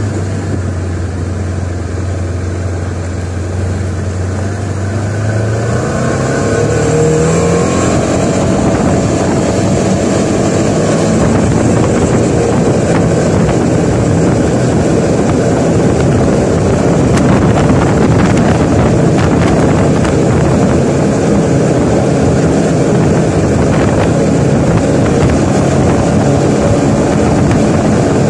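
Small open vehicle's engine idling, then speeding up about six seconds in as the vehicle pulls away. It then runs steadily while driving, with rumble and wind on the microphone.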